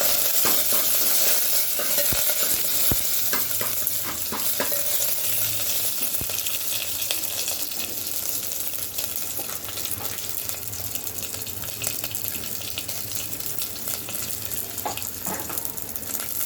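Food sizzling in hot oil in a pan while being stirred, with scattered clicks and knocks of the spoon against the pan. The sizzle is loudest at the start and slowly dies down.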